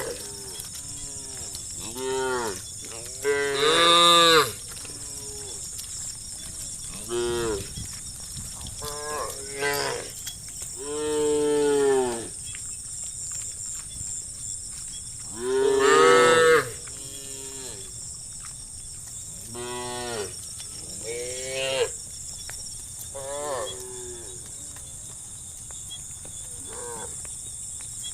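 Cattle mooing again and again, about a dozen calls from several animals in the herd. Some calls are short and some drawn out, and the two loudest, longest moos come about four seconds and sixteen seconds in.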